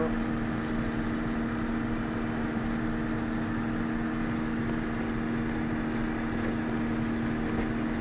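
Combine harvester running steadily while harvesting corn, its corn head taking in standing rows: an even machine hum with a constant drone.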